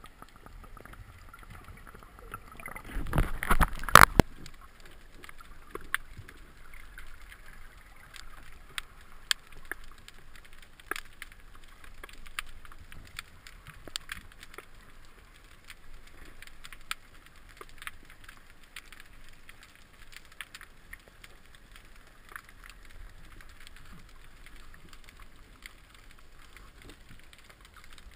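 Underwater sound picked up through an action camera's waterproof housing: a faint steady hiss with sharp clicks scattered throughout, and a louder cluster of knocks and rumble about three to four seconds in.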